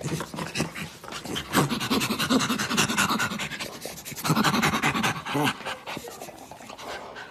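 Chimpanzee panting rapidly in short breathy pulses, with a few grunting calls mixed in.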